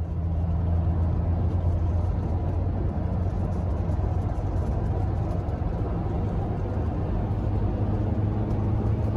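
Volkswagen Vanagon driving at a steady speed: a low, even engine drone with road noise, fading in at the start.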